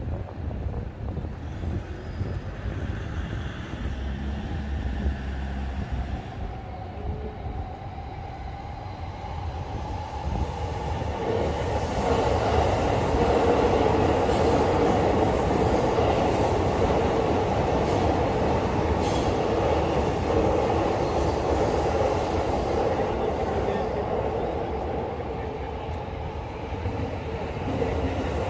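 A train running past on the railway, the noise growing louder about ten seconds in and staying loud, over lower steady street noise beforehand.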